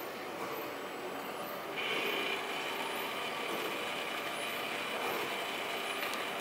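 Small motors and gear drives of a mechanical nativity scene running, a steady whir with a high squeal that comes in about two seconds in.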